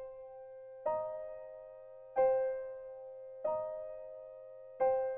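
Slow, soft instrumental background music: a chord is struck about every second and a third and left to ring out and fade, two chords taking turns.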